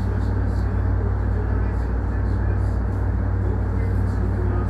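Steady low hum inside a stationary electric commuter train, its onboard equipment and air conditioning running while the train stands waiting.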